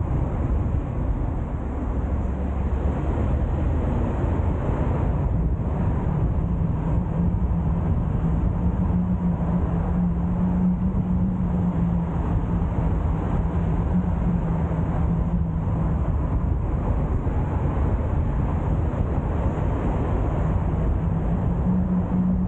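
A car driving steadily on the road: continuous engine and tyre noise with a steady low hum.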